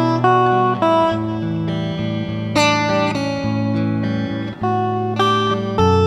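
Background music on plucked guitar: single notes and chords struck every half second to a second over a low bass line.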